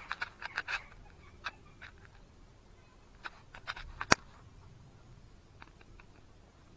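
Scattered light clicks and taps of small metal parts being handled at a small bench lathe, with a cluster in the first second and one sharper click about four seconds in; the lathe motor is not running.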